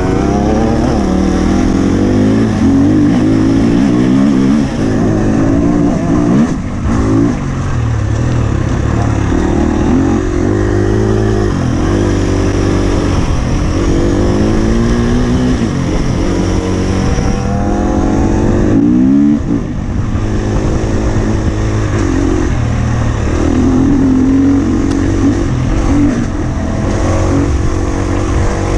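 Husqvarna FE 250's four-stroke single-cylinder engine being ridden hard, its pitch rising and falling over and over as the throttle is opened and shut through the gears, with two short drops in the engine note, about a quarter of the way in and about two thirds of the way in.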